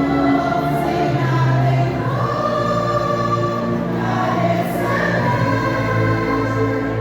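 A vocal group singing a Christian worship song together, holding long sung notes over a steady low accompaniment.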